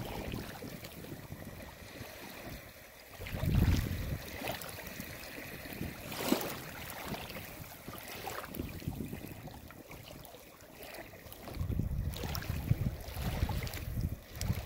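Small waves lapping and washing over pebbles and rocks at a lake's edge, close to the microphone. Louder low rumbling surges come about three and a half seconds in and again near the end, with a brief sharper splash in between.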